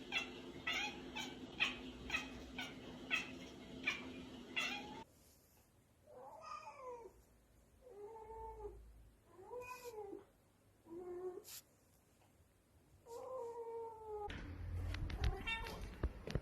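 Domestic cats meowing. First come short repeated cries, about two a second, over a steady hum. Then come five separate drawn-out meows, each rising and falling in pitch. Near the end there is a noisier stretch with clicks.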